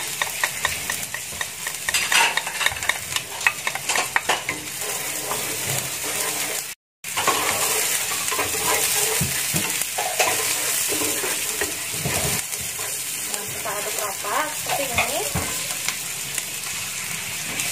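Sliced onions and chopped garlic sizzling in hot oil in a nonstick frying pan, stirred with a wooden spatula that scrapes over the pan. The sound cuts out for a moment about seven seconds in.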